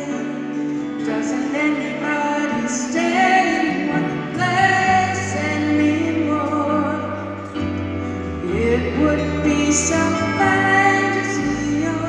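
Live band music with a woman singing a slow ballad over acoustic guitar and bass, heard from the audience of a large hall.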